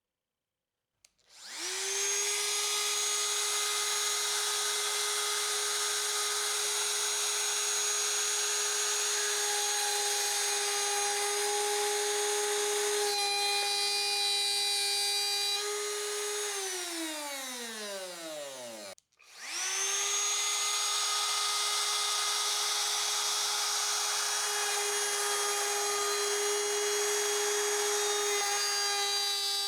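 Trim router switched on, spinning up fast and running with a steady high whine. About halfway through it is switched off and winds down over a few seconds with falling pitch, then it is started again and runs on.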